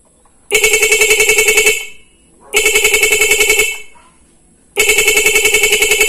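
Motorcycle disc horn wired through an interrupter relay, sounded three times for about a second each. Each press comes out as a rapid stuttering beep, "tututututut", at about ten pulses a second, as the relay chops the horn's power. Wired this way it sounds somewhat weaker, since the power does not yet come straight from the battery through a relay.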